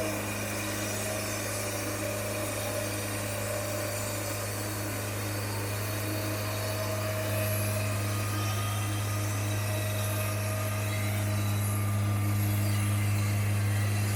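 Sawmill engine running at a steady speed, a little louder about halfway through.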